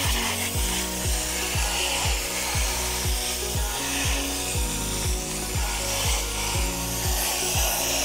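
Aerosol can of foaming coil cleaner spraying in a steady hiss onto an RV air conditioner's coil fins, over background music with a steady beat.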